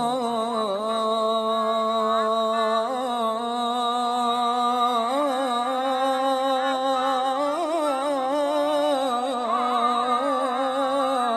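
A voice singing a long, drawn-out melismatic line of an Arabic nasheed about the call to prayer, the held notes wavering up and down in pitch.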